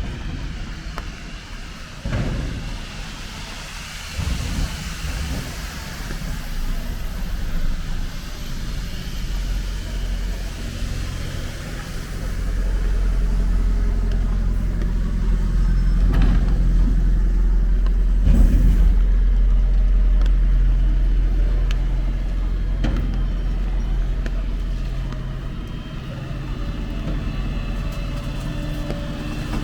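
City street traffic on wet roads: a heavy vehicle's engine running close by, a low rumble that builds about twelve seconds in and eases off near the end, over a hiss of rain and tyres on wet tarmac.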